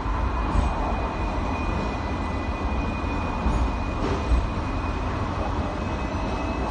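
Hong Kong double-decker tram running along its tracks, heard from on board: a steady low rumble with a faint, steady high whine above it.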